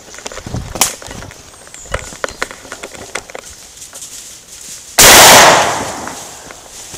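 A hunting gun fires once about five seconds in, so close that the shot clips, and the report dies away over about a second. Before it, footsteps and rustling in dry leaf litter.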